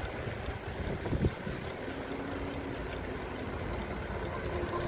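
Wind rumbling on the microphone and tyre noise from a bicycle rolling along a paved road, with a faint steady engine hum from traffic and a short knock about a second in.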